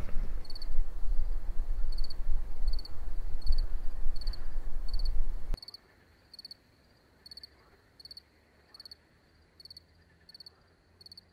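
A cricket chirping at a steady pace, a short trill roughly every two-thirds of a second. A loud low rumble under it for the first half cuts off suddenly about halfway through, leaving the chirps alone.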